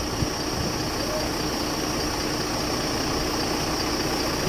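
An engine idling steadily, a constant low rumble with a faint steady hum over it.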